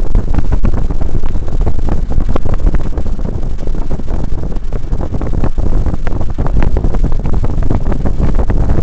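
Loud, distorted low rumble inside a moving car with the windows down: heavy subwoofer bass from dual 15-inch speakers overloading the microphone, mixed with wind buffeting.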